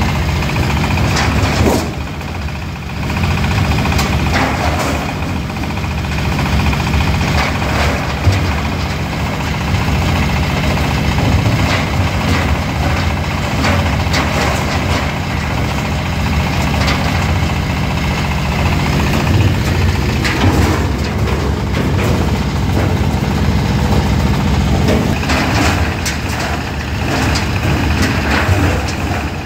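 13 hp diesel engine running steadily, driving an oil palm loose-fruit (brondol) thresher, with scattered short knocks and rattles over the low engine hum.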